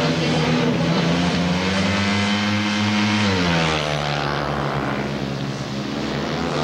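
Speedway bikes' single-cylinder methanol engines revving hard at the start line. The pitch climbs and holds, then drops about three seconds in as the bikes leave the start and run into the first bend.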